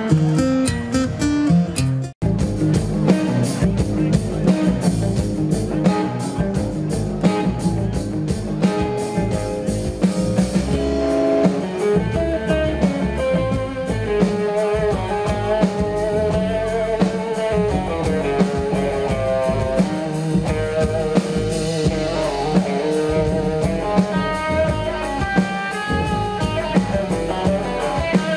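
Live instrumental band music: electric guitar playing a melody over upright double bass and drums. A sudden momentary drop-out about two seconds in.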